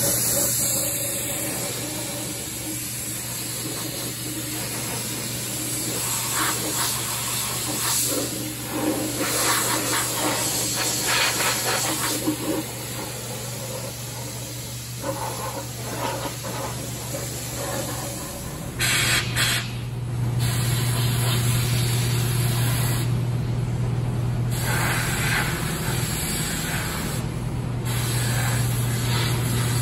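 Compressed-air Schutz undercoating gun spraying tar-like undercoat in hissing bursts that come and go, over a steady low hum that grows louder about two-thirds of the way in.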